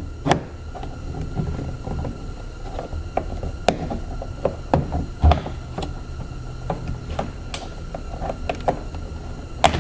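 Plastic interior trim panel being pried at with a plastic clip removal tool: irregular clicks, taps and rubbing of plastic on plastic as the hidden retaining clips are worked.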